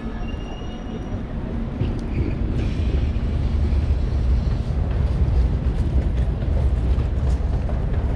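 Train running with a steady low rumble that grows louder about two and a half seconds in, with brief faint high-pitched tones near the start.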